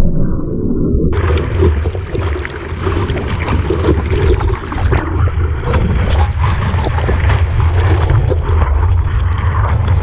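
Loud rushing water and wind buffeting an action camera's microphone in the surf, dense and uneven, turning suddenly brighter about a second in.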